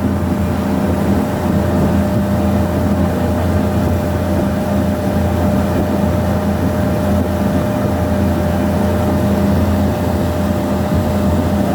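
Ferry boat's engine running steadily while underway, a constant drone with a steady hum.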